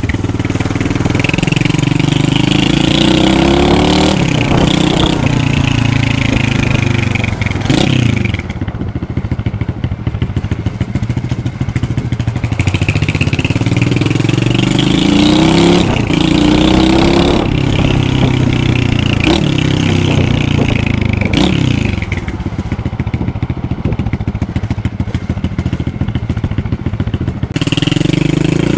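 Lifan 125cc pit bike's single-cylinder four-stroke engine revving, its pitch rising and dropping back several times, with two quieter spells at lower revs.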